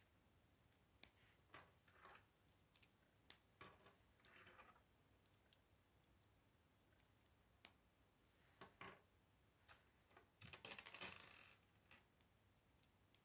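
Plastic K'nex pieces clicking as grey gear and connector parts are snapped together and set down on a wooden table, in scattered single clicks. A short rustle of pieces a few seconds in, and a longer, louder rattle of loose pieces being handled near the end.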